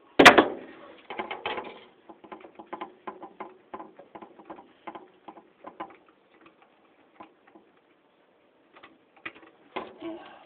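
Ceiling fan parts being handled and worked by hand: one sharp knock right at the start, then a quick run of light clicks and rattles that thins out and picks up again briefly near the end.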